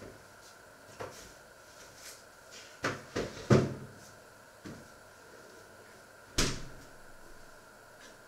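Kitchen clatter: scattered knocks and clunks of things being handled, with three quick knocks around three seconds in, the last the loudest, and a sharp click a little past six seconds.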